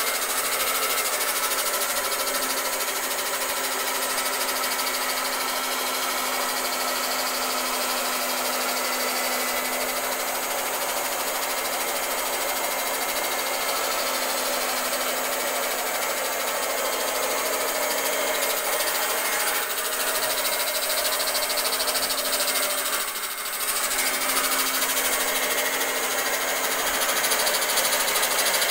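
Handheld electric cloth cutting machine running steadily as its blade cuts through a stack of fabric layers, a constant motor hum with a high whirr. It dips briefly about three-quarters of the way through.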